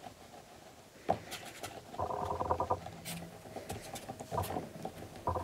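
Hands rolling a coil of air-drying clay back and forth on a wooden table: soft rubbing with light knocks, a sharper knock about a second in and a louder stretch of rubbing about two seconds in.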